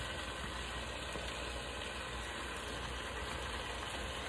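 Oxtails and their juices sizzling steadily in the steel inner pot of an Instant Pot.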